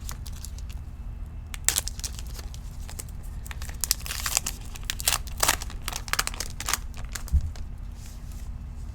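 A trading card pack's plastic wrapper being torn open and crinkled by hand, in irregular crackly clusters about two seconds in, again around four to five and a half seconds, and near seven seconds, over a low steady room hum.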